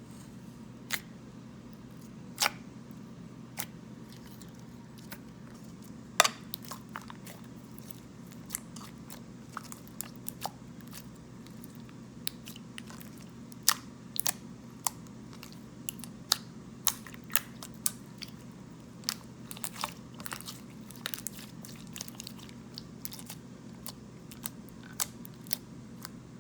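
Clear glue slime being played with by hand: scattered sharp pops and clicks at irregular intervals over a faint steady hum.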